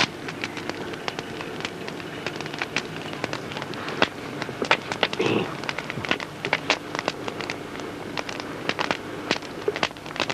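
Campfire crackling and popping, a continual scatter of irregular sharp snaps.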